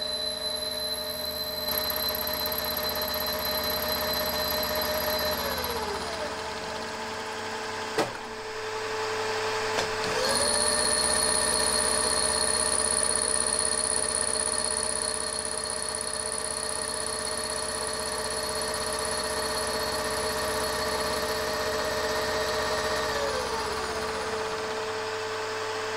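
Milling machine cutting 6082-T6 aluminium with an end mill, the spindle running with a steady whine. A second, higher motor whine winds down about six seconds in. After a couple of clicks it spins back up with a rising pitch about ten seconds in, then winds down again near the end.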